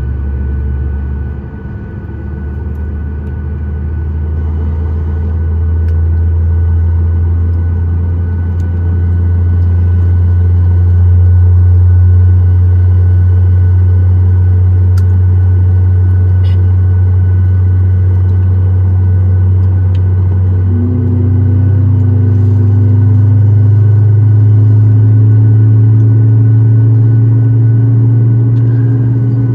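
Cabin noise over the wing of a Boeing 737 MAX 9 on the ground: its CFM LEAP-1B engines running at low taxi power, a steady low rumble with a faint steady whine. About twenty seconds in, the engine note steps up in pitch.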